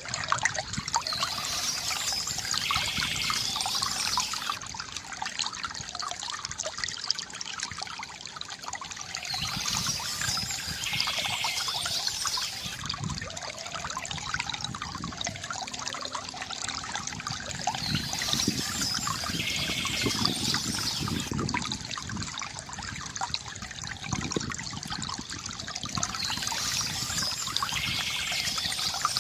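Water trickling and gurgling from a bamboo fountain. A higher chirping passage, birdsong, returns four times at about eight-second intervals.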